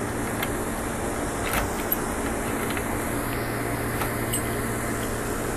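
A steady mechanical hum with a low drone, with a few faint clicks and taps as a key works the trunk lock of a 1967 Chevrolet Camaro.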